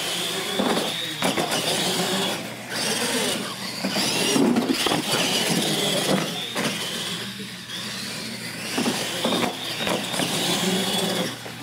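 Radio-controlled monster trucks racing on a concrete floor: their motors and drivetrains whine steadily, with tyre noise and several knocks as the trucks go over the ramps.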